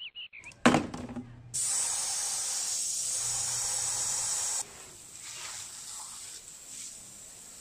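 A sharp knock, then a garden hose with a brass spray nozzle hissing steadily as it sprays water into a plastic basin. About three seconds later the spray turns quieter and uneven as it plays over a car's windshield.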